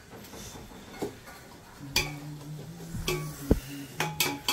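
Metal spatula stirring and scraping in an aluminium cooking pot of onions, mint and mutton fat frying in oil and ghee, with a soft sizzle and several sharp knocks of the spatula against the pot, most of them in the second half.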